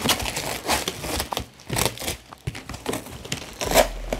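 Packing tape and plastic wrap being torn and peeled off a cardboard box, crinkling and rustling in irregular bursts.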